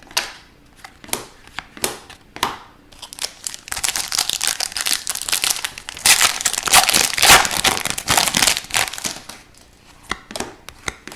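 Plastic wrapper of a hockey card pack crinkling as it is torn open and handled: a few sharp crackles, then about five seconds of dense crinkling, then a few light clicks near the end.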